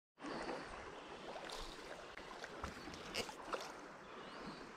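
Shallow creek riffle running over stones, a steady rushing of water, with a few faint ticks around the middle.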